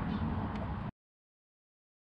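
Steady background rumble and hiss that cuts off abruptly just under a second in, leaving dead silence.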